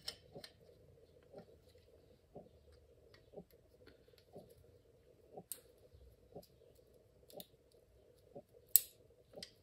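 Groove-joint pliers gripping and working the plastic end cap of a bike-light battery: a few sharp clicks, the loudest near the end. Under them, a faint soft tick repeats about once a second.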